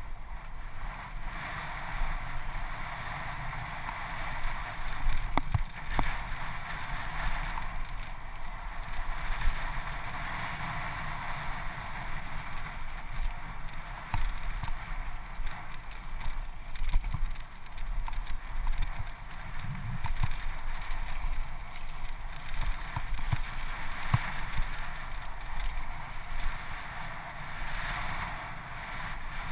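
Mountain bike descending a dirt singletrack at speed: a steady rush of wind and tyre noise with scattered sharp knocks and rattles as the bike hits bumps, picked up by a camera riding on the bike.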